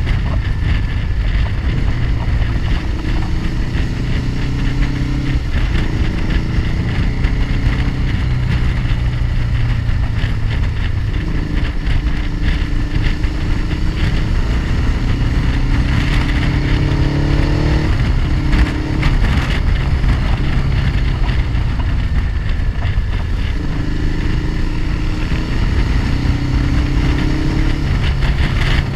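Motorcycle engine running under way, its pitch rising repeatedly as it accelerates and dropping back at gear changes, with steady wind and road noise.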